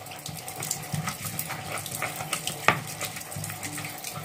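Stone pestle crushing and grinding wet chilli, tomato and shallot in a stone mortar (ulekan and cobek): repeated wet scraping, squashing strokes, with one sharper knock of stone on stone about two-thirds of the way in.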